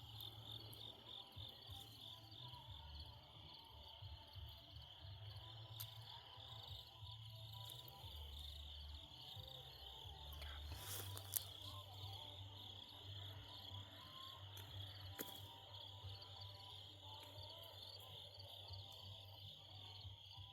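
Faint, steady high-pitched chorus of crickets, over a low rumble, with one sharp click about eleven seconds in.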